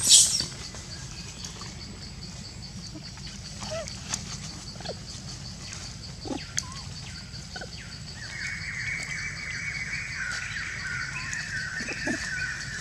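A monkey's shrill squeal cuts off right at the start. After it comes outdoor ambience: a steady, high, rapidly pulsing drone, a few short soft calls, and a wavering higher buzz for a few seconds after the middle.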